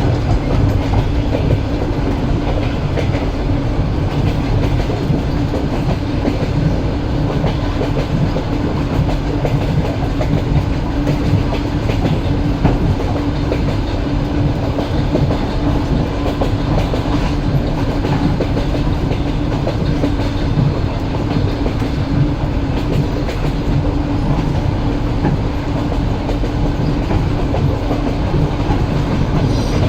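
Train wheels rumbling and clicking on the rails at running speed, a steady clickety-clack with a constant low hum underneath.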